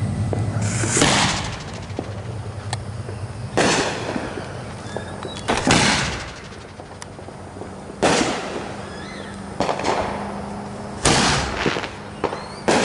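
A run of fireworks going off: about six sharp, loud bangs spaced a second or two apart, each trailing off in a short rumble, with fainter pops and crackles in between.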